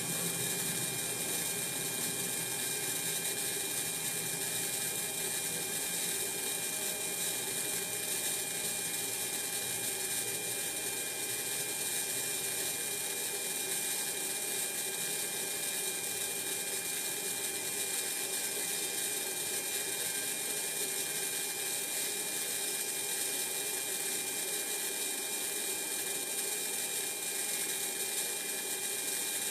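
Servo motor and gear train inside a Kollsman servo altimeter running steadily as they drive the pointer and drum counter down through the altitude range: a continuous high whir with a thin steady whine in it.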